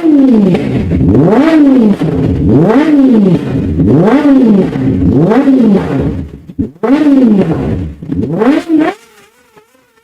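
Sport motorcycle engine revved hard again and again, its pitch rising and falling about once a second, dying away near the end.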